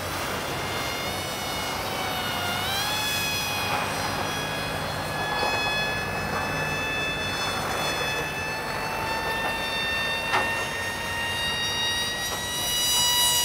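Radio-control model plane's motor and propeller whining in flight overhead, a steady high pitch that dips and recovers about two to three seconds in, then holds and creeps slightly higher. A short click about ten seconds in.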